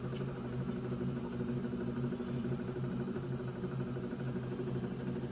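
Electrolux Turbo Economia 9 kg washing machine in its final spin, motor and drum running at a steady speed with an even hum.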